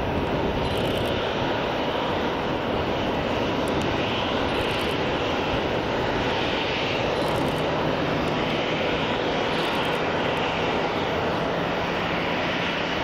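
Airliner jet engines running, a steady loud rushing noise with faint steady hums through it.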